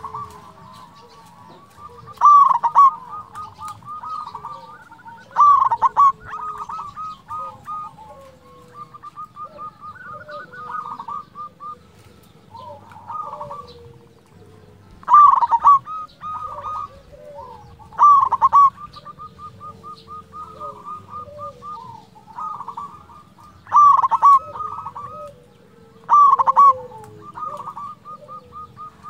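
Zebra dove (perkutut) singing: repeated phrases of quick staccato coos, with a loud accented phrase every few seconds and softer rolling trills in between.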